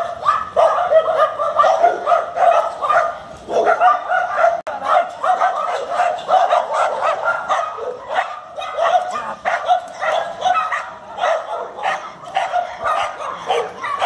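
Dog barking in a rapid, unbroken string of short barks, several a second.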